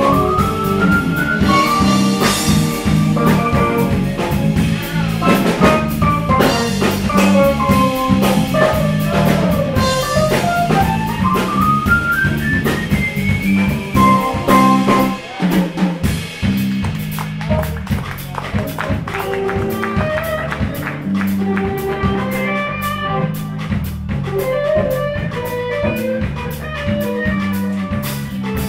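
Jazz fusion band playing live: drum kit, electric bass, electric guitar and keyboards, with a fast lead melody line sweeping up and down in pitch. The band briefly drops out about halfway through, then comes back in.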